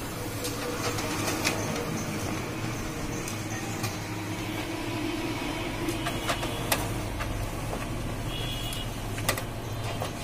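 Toshiba e-Studio 2309A photocopier running a copy job: a steady machine hum with scattered sharp clicks as sheets feed through and come out onto the output tray.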